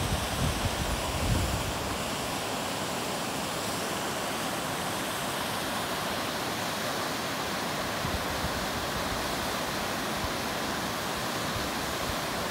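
Steady rush of a mountain river and waterfall flowing below, an even hiss from low to high with no break. A couple of low thumps about a second in.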